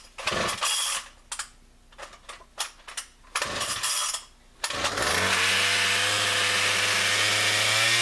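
Poulan Pro PR4218A two-stroke chainsaw cold-started: several rasping pulls on the starter cord, then the engine catches about five seconds in and idles steadily.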